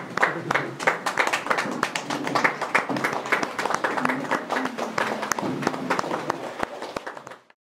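A small group of people clapping their hands in applause, with a few voices talking over it. The clapping stops abruptly just before the end.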